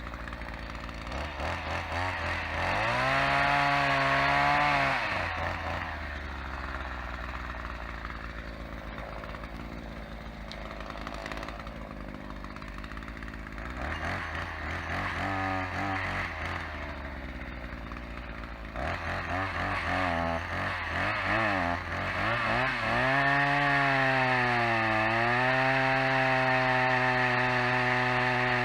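Petrol chainsaw idling, revved up for a couple of seconds near the start, blipped a few times, then held at high revs for the last third, its pitch dipping briefly once.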